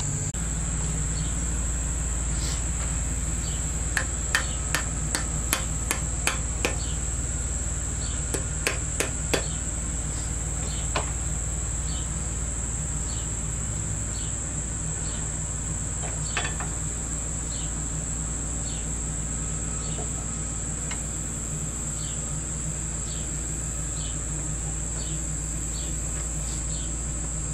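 Light hammer taps on a metal punch, stamping a decorative design into a copper fitting: a quick run of about a dozen taps a few seconds in, then occasional single taps. Insects keep up a steady high-pitched chirring behind.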